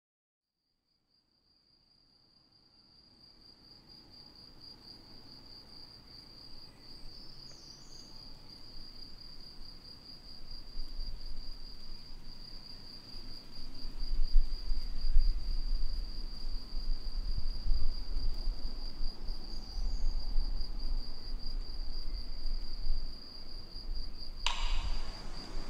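A cricket trilling: one continuous, finely pulsed high trill that fades in from silence over the first few seconds. A low rumble grows beneath it from about halfway through, and a sharper sound cuts in just before the end.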